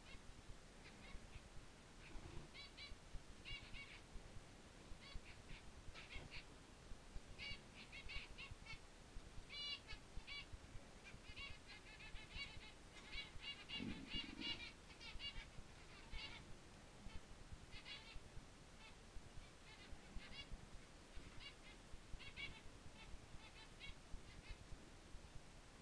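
Faint chirping of a small bird: short high calls in irregular clusters throughout, with a brief lower sound about halfway through.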